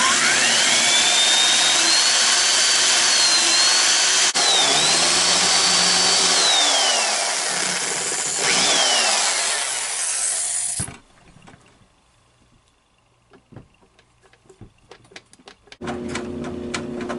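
Electric drill boring out the lock of a gum vending machine with a larger bit. The motor whine rises as it spins up, dips and falls away twice as the trigger eases, then the drill cuts off suddenly about eleven seconds in. A few faint clicks follow, and a steady hum comes back near the end.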